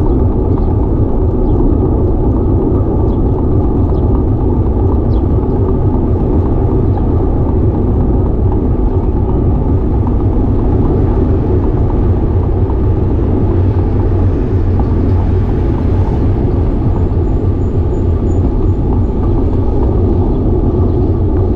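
Steady, loud wind rumble on a handlebar-mounted action camera's microphone, mixed with the rolling and vibration of a bicycle on a paved path.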